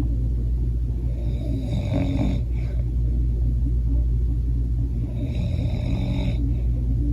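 A man snoring in his sleep: two long snores about four seconds apart, over a steady low hum.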